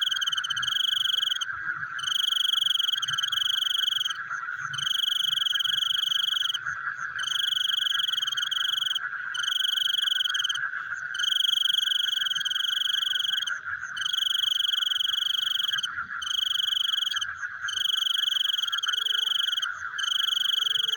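Frogs calling in a night chorus: a steady, continuous trill with high-pitched trilled calls that repeat every second or two, broken by brief pauses.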